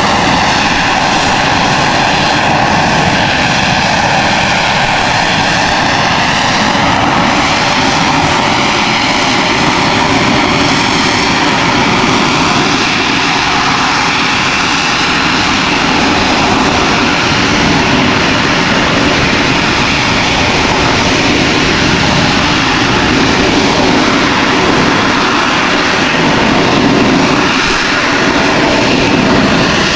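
AV-8B Harrier II's Rolls-Royce Pegasus vectored-thrust turbofan running loud and steady during a slow, low demonstration pass. Its tone shifts and sweeps in the first several seconds, and the hiss dulls somewhat about halfway through.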